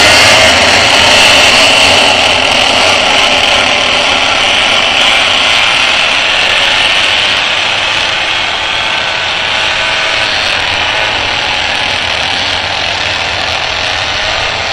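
A pack of pocket bikes racing, their many small engines revving hard in a dense high-pitched buzz. The buzz gets somewhat quieter over the first half as the bikes pull away.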